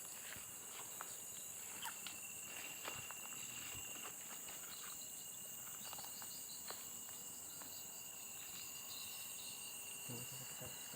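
Insects trilling steadily, with one high, even note joining about two seconds in. Scattered soft footsteps and small clicks sound underneath.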